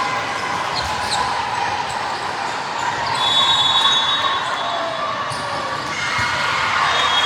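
Basketball game sounds in a gym: the ball bouncing on the court, short high sneaker squeaks, and the chatter of spectators.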